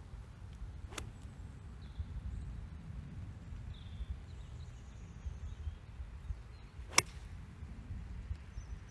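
A golf iron striking the ball once, a single sharp click about seven seconds in, the loudest sound here. Before it there is a steady low wind rumble on the microphone, a fainter click about a second in and a few faint bird chirps.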